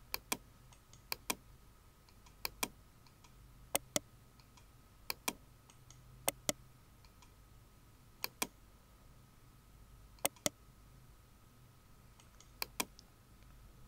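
Computer mouse button clicking in quick pairs, about every one to two seconds, nine pairs in all, as spline points are placed one by one along a curve in CAD software.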